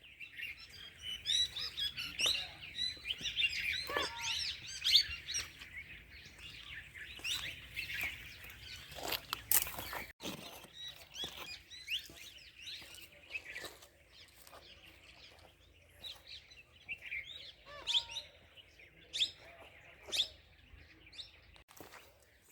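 Wild birds singing and chirping, several overlapping calls and trills with a few sharper, louder notes; busiest in the first half, thinning out after a brief break about ten seconds in.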